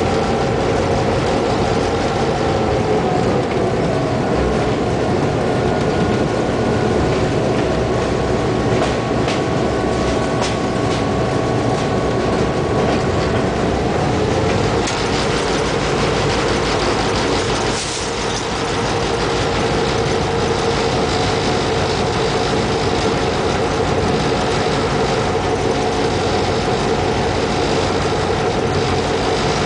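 Diesel locomotive running along the track, heard from its cab: a steady engine drone over the rumble and rattle of wheels on rail. The engine note drops a little a few seconds in and comes back up about halfway through.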